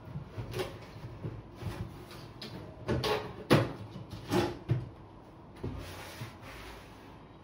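An empty cardboard box being picked up, slid and set down on a table: a run of light bumps and scrapes, the loudest about three and a half seconds in.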